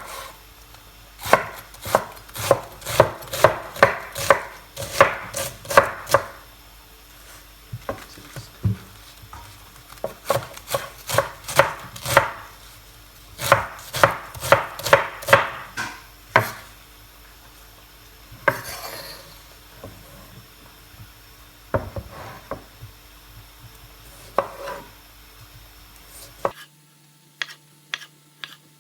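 Knife chopping salad vegetables on a cutting board: quick runs of sharp strokes, about four or five a second, broken by pauses and thinning out toward the end.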